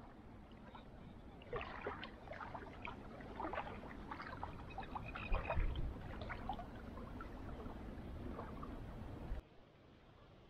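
Small waves lapping and splashing irregularly at the shallow lake edge, with wind rumbling on the microphone; the sound cuts off suddenly about a second before the end.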